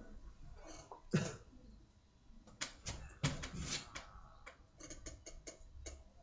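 Faint room sounds: a person's short coughs, about a second in and again past three seconds, then a handful of faint clicks near the end.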